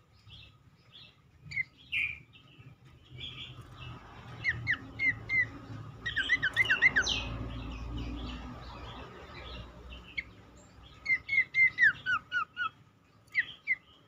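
A cingcoang babbler singing in runs of short, quick whistled notes, each sliding down in pitch, three to six notes to a run with pauses between. Fainter chirps sound in the gaps, and a low rumble runs under the middle of the song.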